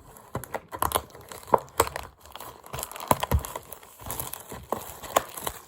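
Plastic wrapping on a trading-card booster box being torn open and crinkled: irregular crackling with sharp snaps.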